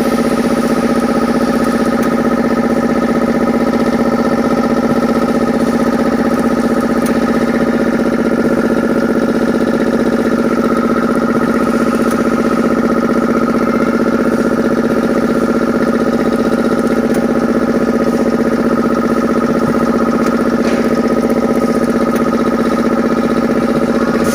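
Cooking-oil packaging machine running with a steady mechanical hum that holds an even pitch, with a few faint clicks.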